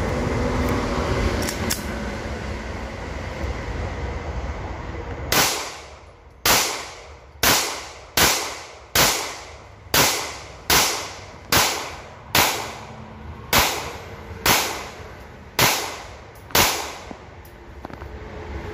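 Glock 17 9mm pistol fired at a steady pace, about thirteen shots roughly one per second starting about five seconds in. Each crack is followed by a short echo.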